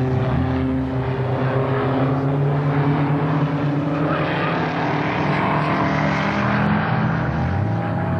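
The BMW K100 four-cylinder engine of a Grinnall Scorpion III trike running steadily, its pitch shifting slightly, with a rushing noise building from about halfway through.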